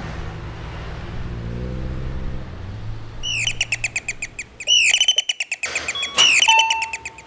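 A small songbird chirping in quick runs of short, sharp, falling chirps, several a second, starting about halfway through. Before the chirps there is a low steady hum.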